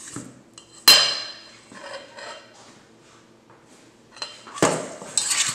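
Metal spoon clanking and scraping against a stainless steel mixing bowl while tossing raw chicken wings with dry seasoning: one sharp, ringing clank about a second in, then quieter scrapes and clinks, busier again near the end.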